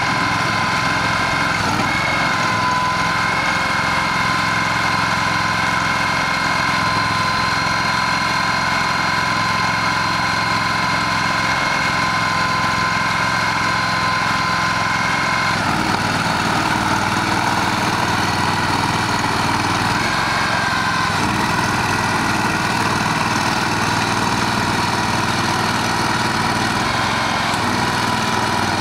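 Aquatic weed harvester's engine running steadily with a high whine over it. About halfway through the whine shifts and the low engine sound grows, as the machine changes its working load.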